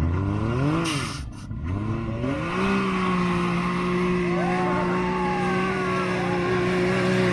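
Can-Am Maverick X3 side-by-side engine revving hard as it climbs a sand dune. It rises in pitch twice in the first couple of seconds, with a short let-off about a second in, then holds one steady high pitch under full throttle while the tires throw sand.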